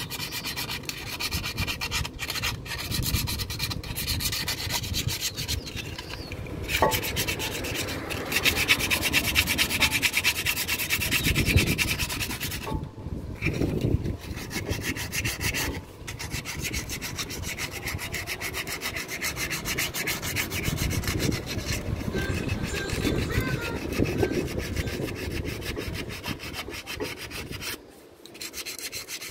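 Brake pads being worked out of a 2013 Ford Escape's front brake caliper, with continuous rubbing and scraping of pad against metal that pauses briefly near the end.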